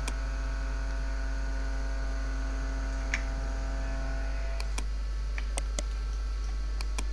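Steady electrical mains hum, with a fainter higher hum that drops out about four and a half seconds in. A handful of sharp computer-mouse clicks, most of them in the second half.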